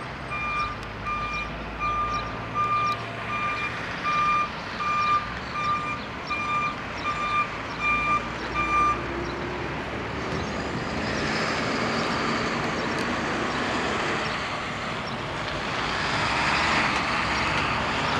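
A vehicle's reversing beeper sounds a steady, evenly spaced beep and stops about nine seconds in. From about ten seconds in, the jet engines of an Airbus A330-300 on landing approach grow into a rushing roar that is loudest near the end.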